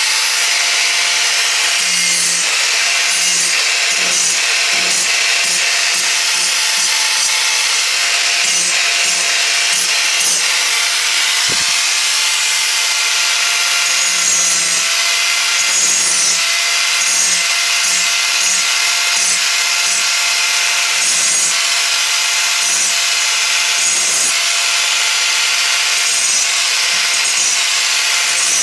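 Power grinder grinding down the sharp edges of a metal anvil: a steady, loud harsh grinding noise over a constant motor whine.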